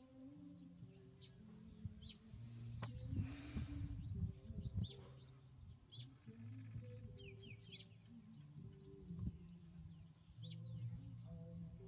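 Short, high chirps come every second or so over a low hum of shifting notes. A louder, noisier rustling stretch comes about three to five seconds in.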